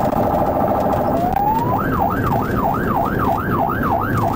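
Police car electronic siren heard from inside a moving cruiser. It starts as a rapid warble, then about a second in switches to a fast yelp that sweeps up and down about three times a second, over steady road and engine noise.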